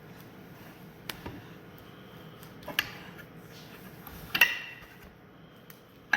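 Metal tools and parts clinking and clanking a few times over a low steady hum, the loudest clank about four seconds in ringing briefly.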